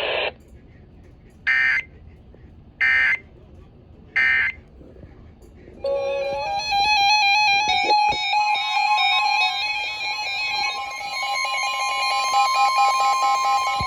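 Three short, identical bursts of Emergency Alert System digital data, the SAME end-of-message code that closes a broadcast alert. About six seconds in, a melodic synthesized music track starts with quickly stepping notes.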